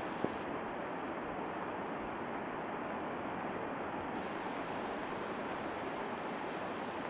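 Steady rush of a swollen, muddy river in spate flowing fast, with a single brief tick near the start.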